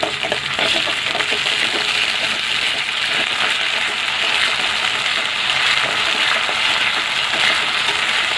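Onions and green chillies frying in hot oil in an aluminium kadai: a loud, steady sizzle as they are stirred with a wooden spatula.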